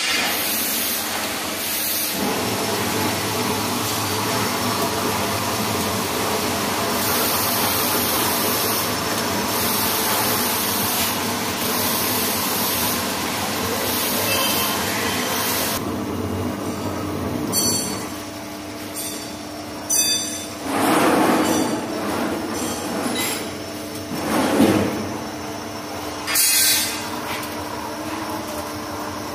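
CNC lathe turning a steel shaft: an even hiss of coolant spray and cutting over the machine's steady running hum. About halfway through the hiss drops away, leaving the hum, broken by a few short louder bursts in the last ten seconds.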